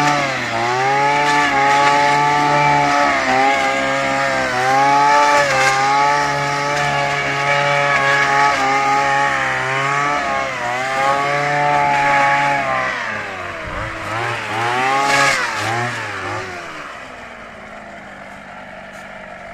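Two-stroke brushcutter engine driving an adapted blower fan at high throttle, its speed dipping and recovering every second or two as the operator works it, with the rush of the air blast. About three seconds before the end it winds down and settles to a steady idle.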